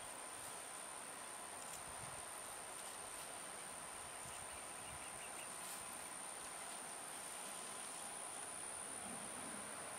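Faint, steady, high-pitched insect drone with no break in it.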